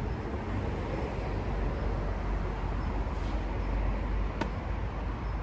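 Steady low outdoor rumble of background noise, with one sharp click about four seconds in.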